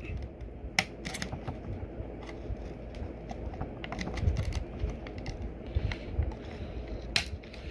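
Scissor blade scraping and prying at a thin clear plastic blister shell, with scattered crinkles and small sharp clicks of the plastic.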